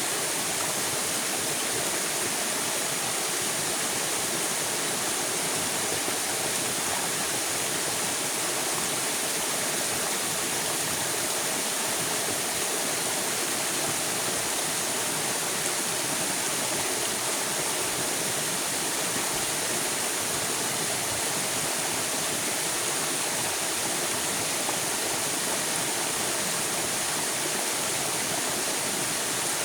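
River water flowing in a steady, even rush, with no single splashes or breaks.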